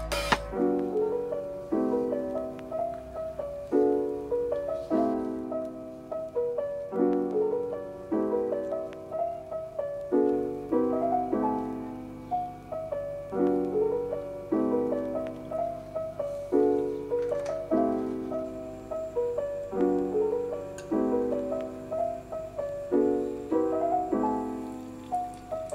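Background piano music: a gentle pattern of notes and chords repeating about every two seconds.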